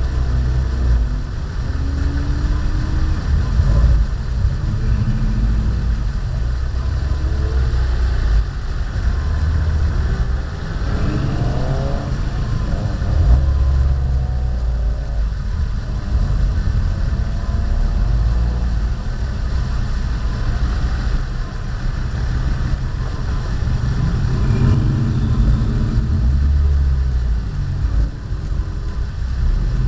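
Car engines running at low speed, with short rises in revs every few seconds as the cars creep forward in a line, over a heavy low rumble.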